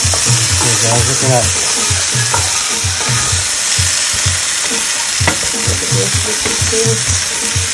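Seasoned cow foot pieces sizzling as they fry in a pot while they are stirred and turned over. There is a steady hiss throughout and one sharp knock about five seconds in.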